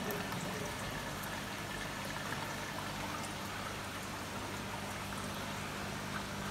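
Water bubbling and trickling steadily around the central pipe of a round culture tank, over a steady low hum.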